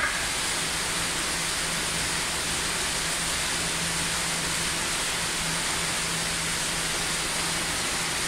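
Steady, even hiss with a faint low hum underneath, unchanging throughout: constant background noise of the enclosure.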